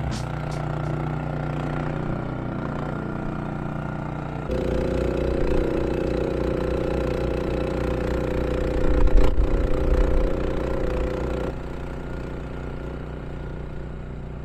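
Single-cylinder Honda iGX390 engine of a Honda HSM1390i hybrid snowblower running steadily. The sound steps louder about four seconds in and drops back quieter a few seconds before the end.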